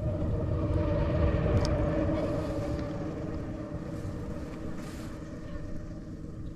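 A motor engine running with a steady drone, swelling to its loudest a second or two in and then slowly fading, as if passing by.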